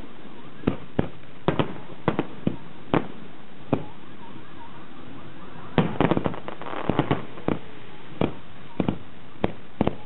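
Aerial firework shells bursting in an irregular run of sharp bangs. There is a short lull near the middle, then a quicker cluster of bangs about six to seven seconds in.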